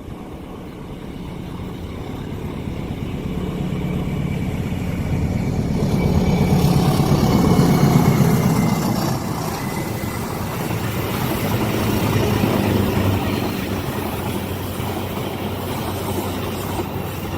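Engine noise of a passing heavy vehicle, growing louder to a peak about halfway through and then fading, over a steady low engine hum.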